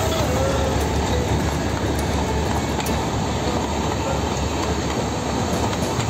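Matheran Hill Railway narrow-gauge train's coaches rolling past at close range: a steady rumble of wheels on the rails with scattered clicks.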